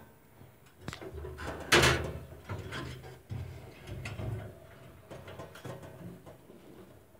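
Irregular knocks and rattles from a wire rabbit cage as rabbits move about inside it, the loudest a sharp clatter about two seconds in.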